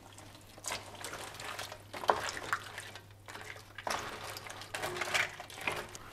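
Wooden spoon stirring crab pieces into a thick curry sauce in an enamelled cast-iron casserole: wet, sloppy stirring strokes with scrapes against the pot, coming irregularly about once a second.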